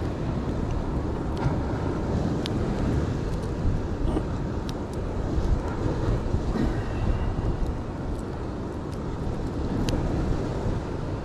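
Steady outdoor wind-and-sea noise rumbling on the microphone, with a few faint ticks and clicks from handling the hooks and bait.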